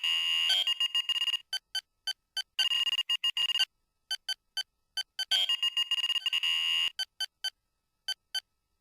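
Synthesized sci-fi computer console beeps: runs of short electronic blips on a high tone, broken by longer held beeps of about a second, the pattern repeating about every five seconds.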